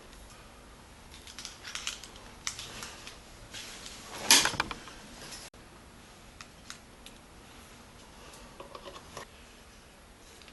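Cable plugs and leads being handled and pushed into the jacks of an electronic drum module: scattered light clicks and rustles, with a louder scrape about four seconds in. The sound cuts off abruptly just past halfway, then a few faint clicks follow.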